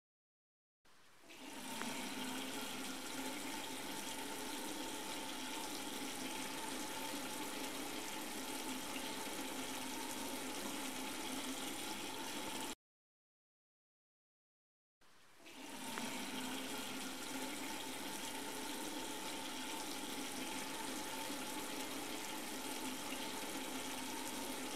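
Water running from a tap. The tap is turned on and builds over about a second to a steady stream, which stops abruptly after about twelve seconds. About two seconds later the tap is turned on again, builds up the same way and keeps running.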